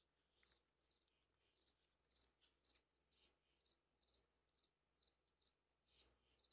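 Faint crickets chirping, short high chirps about three a second, picked up by a doorbell camera's microphone. About six seconds in there is a soft rustle as a possum's fur brushes against the camera.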